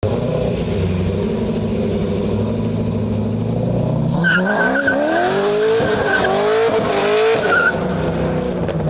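Chevrolet Corvette V8 engine running steadily, then, about four seconds in, climbing in pitch in several sweeps that dip briefly between climbs before settling back. A high squeal sounds over the climbs.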